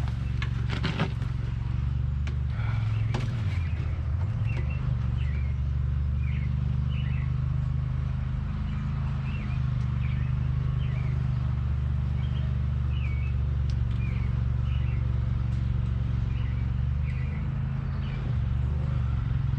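A steady low mechanical hum, with a small bird chirping over it again and again in short notes.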